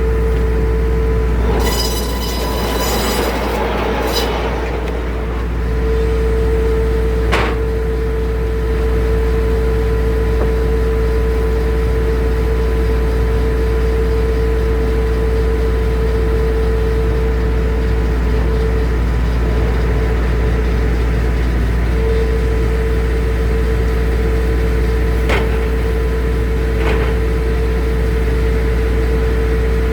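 Circular sawmill running: a steady low drone under a constant whine from the spinning blade. A harsher burst of noise comes about two seconds in, and a few sharp clicks follow later.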